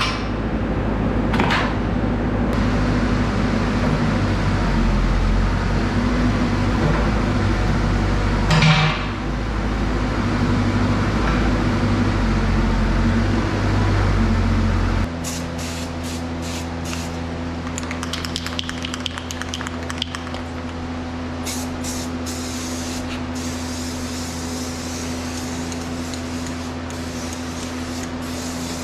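Kubota mini excavator's diesel engine running with a steady drone, with a couple of hammer knocks on the bucket pin early on. About halfway through the engine drops to a quieter steady hum, and short hissing bursts of an aerosol spray-paint can come in.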